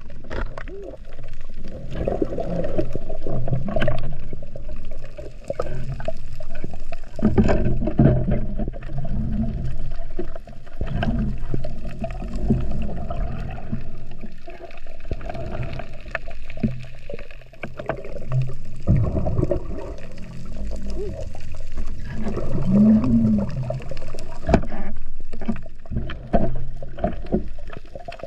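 Muffled underwater noise from a submerged camera: water rushing and gurgling against the housing as the diver swims, with a few short low hums.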